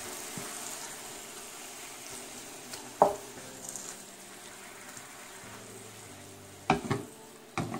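Chicken breast pieces and garlic sizzling in a little oil in a metal pan as a wooden spoon stirs them. The spoon knocks sharply against the pan once about three seconds in and a few times near the end.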